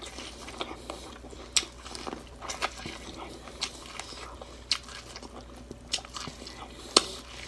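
Biting kernels off an ear of fresh sweet corn on the cob and chewing, close to the microphone: sharp, crisp crunches roughly once a second.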